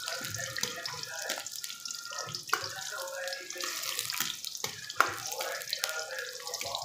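Chopped capsicum, onion and chillies sizzling in hot oil in an iron wok while a steel ladle stirs and scrapes them, with sharp clinks of the ladle against the pan, the loudest about five seconds in.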